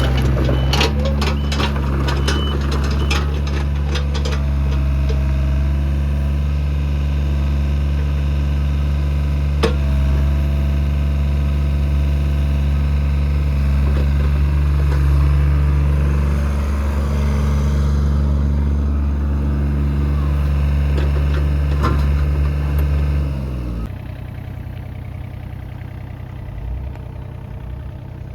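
Komatsu PC27MR-2 mini excavator's diesel engine running steadily at working speed, with a series of sharp knocks in the first few seconds. About 24 seconds in the engine drops back to a quieter idle.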